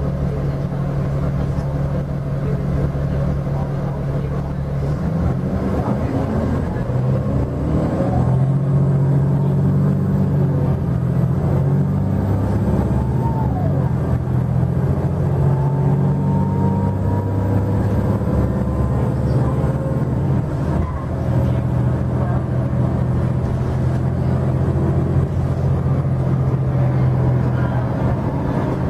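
Cummins ISL diesel engine and ZF six-speed automatic transmission of a Nova LFS city bus, heard from inside the passenger cabin while the bus drives. The engine note holds steady, then steps in pitch a few times as the bus speeds up and shifts, with a faint rising whine in the middle.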